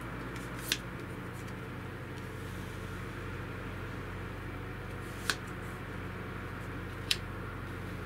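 Steady low hum of room tone with three short, sharp clicks: one near the start and two in the second half, less than two seconds apart.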